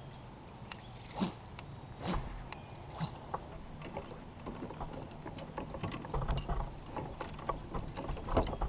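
Fishing tackle being handled on a kayak: irregular light clicks and knocks, coming more often in the second half of the clip.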